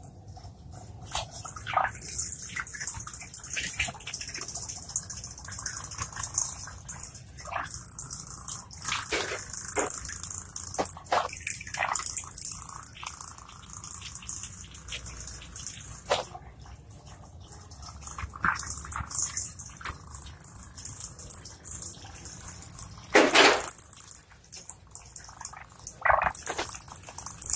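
Propeller on a tiny 3 V motor churning and spraying water: irregular splashes and drips over a steady high hiss, with a louder splash near the end.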